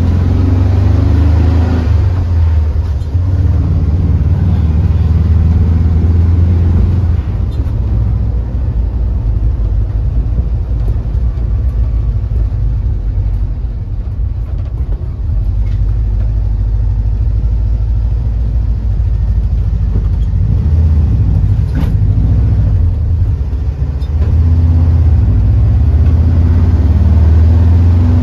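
Volkswagen Bus camper driving, heard from inside the cabin: a steady low engine drone over road noise. The drone is louder at first and again near the end as the engine pulls, and eases in between.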